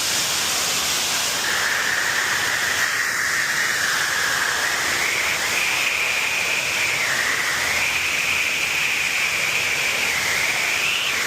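Steady loud hiss of rushing water. A high, wavering whistle-like tone joins it about a second and a half in and drifts up and down in pitch.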